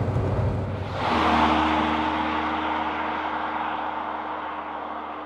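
Saab 9000 T16's turbocharged four-cylinder engine running under way, first from inside the cabin as a low rumble. About a second in it is heard from outside as the car drives off, the engine note and tyre noise fading steadily as it pulls away.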